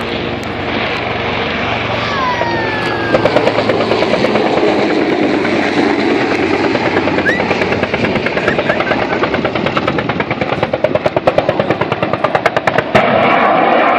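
Cobra attack helicopter flying a low pass, its rotor beating in a fast, sharp, steady rhythm that grows louder and more pulsing in the second half. A single sharp bang comes near the end.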